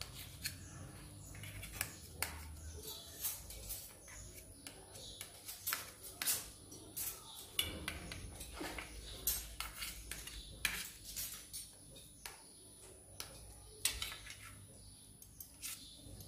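A kitchen knife cutting through fried potato patties, its blade clicking and scraping against a stainless steel plate in faint, irregular taps.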